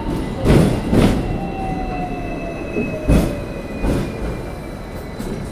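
Hong Kong double-decker electric tram running along its rails, heard from on board: heavy knocks from the wheels, about half a second in, a second in and three seconds in, over a steady running noise, with a whine that slowly falls in pitch.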